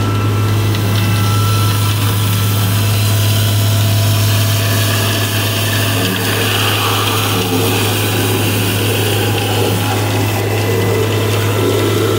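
Vacuum excavation (vac) truck running, a steady loud low drone with the rush of air and soil being sucked up the suction pipe. The rushing grows a little louder about six seconds in.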